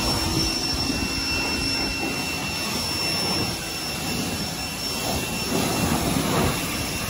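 Electric pressure washer running and spraying water at a pickup truck: a steady high motor whine over a continuous hiss of spray.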